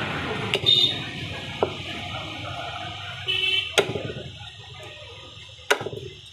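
Meat cleaver chopping lamb heads on a wooden chopping block: four sharp separate blows, the loudest a little past the middle.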